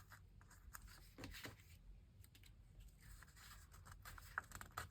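Near silence with faint paper rustles and small ticks, as glued mulberry paper is lifted from a journal page; one sharper tick near the end.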